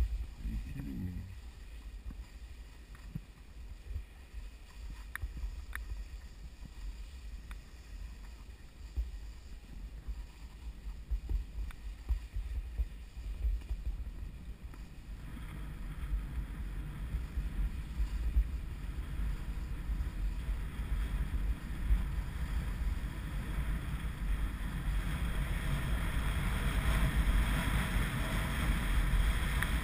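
Wind rumbling on the microphone of a camera carried downhill over packed snow, with the hiss of skis or a board sliding on the snow. The hiss steps up about halfway through and grows louder toward the end.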